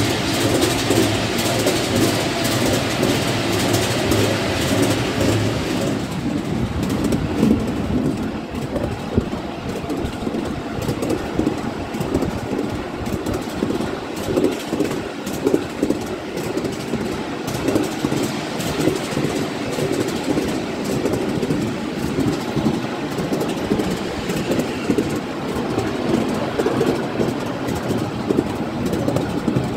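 Ride-on miniature railway train running along the track, heard from on board: a continuous rumble and rattle of the wheels on the rails. It is brighter and louder for about the first six seconds, then settles to a steadier, duller run.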